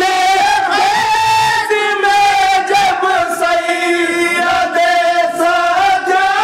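A group of men singing a manqabat in unison, drawing out long held notes that bend slowly in pitch.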